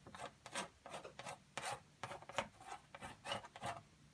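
Acrylic paint being worked onto canvas in quick, short scraping strokes, about two or three a second.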